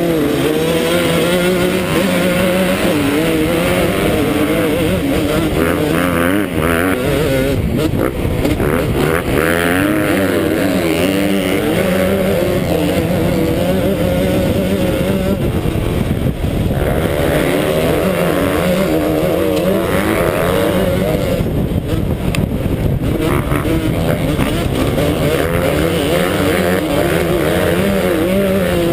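Yamaha YZ125 two-stroke motocross engine racing at full throttle from the start, its pitch rising and falling quickly with shifts and throttle, with other dirt bikes' engines around it.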